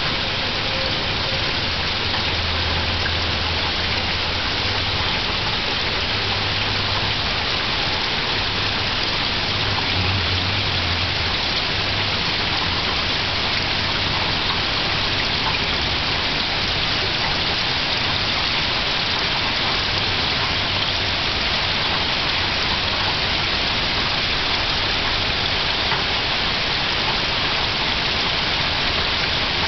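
Gentle, steady rain falling on the leaves of autumn trees, an even hiss of many small drops.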